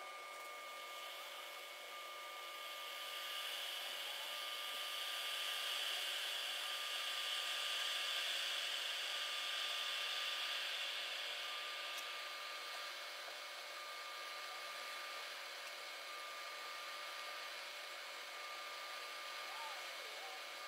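A steady kitchen hiss with faint steady whining tones under it. It swells a few seconds in and eases off after about twelve seconds, with no distinct knocks or scraping.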